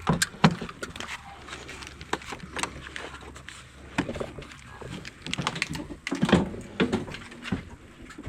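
Irregular clicks and knocks of someone moving about inside a caravan, with a few heavier thumps near the start and again about six seconds in.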